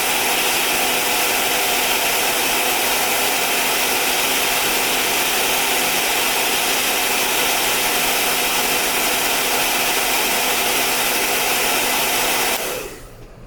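Hair dryer blowing steadily, a rush of air over a low motor hum, switched off near the end.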